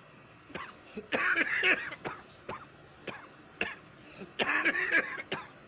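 A person coughing badly: several single coughs and two longer coughing fits, one about a second in and one toward the end.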